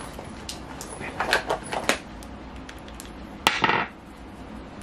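Makeup containers, among them the primer bottle, being handled on a vanity. There is a quick run of light clicks and taps in the second second, then one sharp click with a short rasp about three and a half seconds in.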